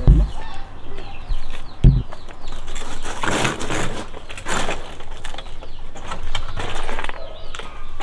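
Bursts of rustling, flapping noise, loudest from about three to five seconds in and again around six to seven seconds, after two dull thumps in the first two seconds.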